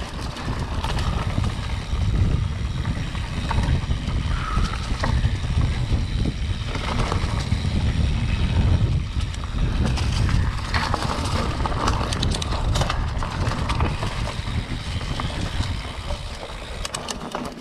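Mountain bike ridden over a dirt singletrack, heard through a handlebar-mounted camera: a steady low rumble from the tyres and frame, with rattles and clicks as the bike jolts over the ground.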